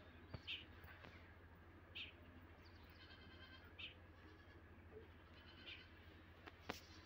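Faint short animal calls every second or two over a low steady hum, with a few light clicks.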